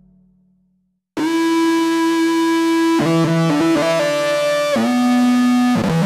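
Roland JD-800 model's 'Wailing Guitar' preset, a distorted, guitar-like synth lead. The tail of the previous electric-piano patch dies away, and after a short gap the lead comes in about a second in, playing long held notes that slide up and down between pitches.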